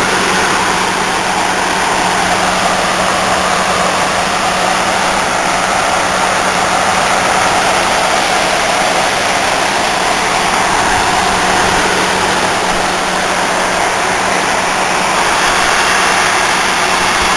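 Window air conditioner built by Email running: fan blowing steadily over the coils with a constant compressor hum underneath. The unit is running and cooling despite its smashed case.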